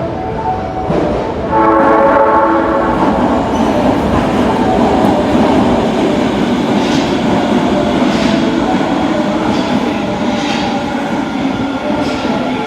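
Osaka Metro 22 series subway train sounding its horn, which has an abnormal, off-sounding tone; the horn is loudest about two seconds in. The train then runs into the platform with a steady rumble and a few wheel clicks.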